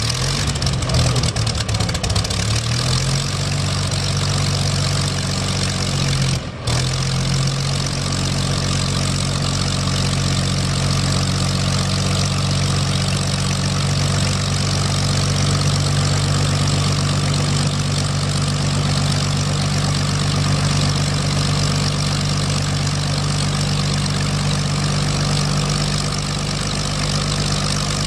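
Curtiss P-40 Warhawk's V-12 piston engine idling with its propeller turning. The pitch wavers unevenly for the first few seconds, then settles into a steady idle. The sound drops out briefly about six and a half seconds in.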